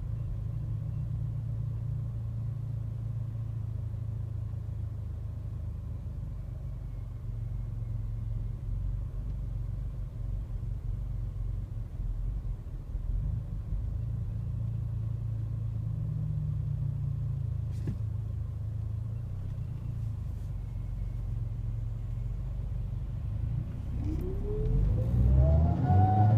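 Mercedes-AMG CLA45's turbocharged 2.0-litre four-cylinder engine running with a steady low rumble, then revving up near the end with a rising, wailing whine that climbs and holds high. The whine comes from a failing turbocharger.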